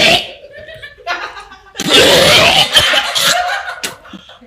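Laughter: a brief burst at the very start, then a loud outburst of about a second and a half near the middle.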